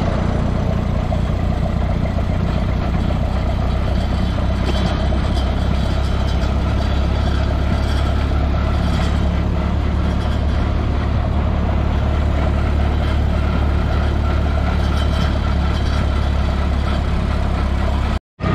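Minneapolis-Moline tractor's engine running steadily at road speed, heard from the driver's seat close behind the exhaust stack.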